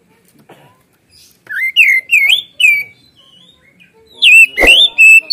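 Oriental magpie-robin singing loud whistled phrases: three rising-and-falling whistles about a second and a half in. After a short pause come sharper, shrill notes near the end, with one sharp knock among them.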